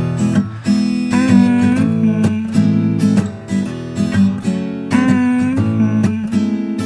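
Background music: a song with strummed acoustic guitar.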